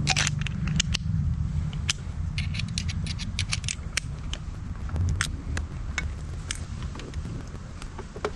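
A screwdriver backing small screws out of an e-bike frame's controller faceplate: many light, irregular clicks and scrapes over a low rumble.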